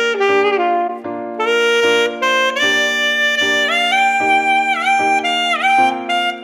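Saxophone playing a melody of separate notes, picked up by a large-diaphragm studio condenser microphone. A couple of held notes dip in pitch and come back up about halfway through.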